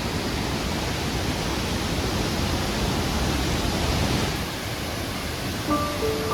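Steady rush of Tirathgarh Waterfall's falling water, an even noise with no breaks. A few notes of background music come in near the end.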